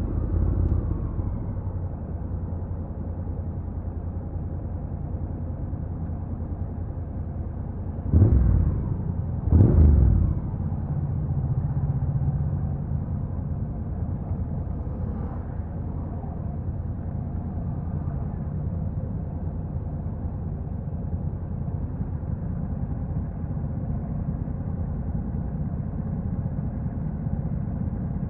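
Honda NC750X's stock 745 cc parallel-twin engine running at low revs. It eases off at the start, with two short loud bursts about eight and nine and a half seconds in, then settles to steady low running.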